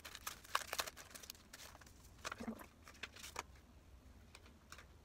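Packaging crinkling and rustling as the contents of a new flat iron's box are handled and pulled out, in several irregular bursts.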